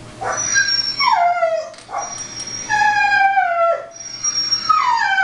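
A recorded dog whining and howling sound effect played through computer speakers: three long falling whines, each the same, about two seconds apart.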